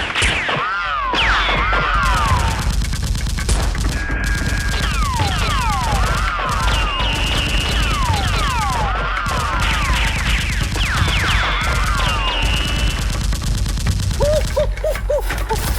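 Continuous rapid gunfire sound effects, with bursts of automatic fire over a steady low rumble and many short falling whistles like bullets whizzing past.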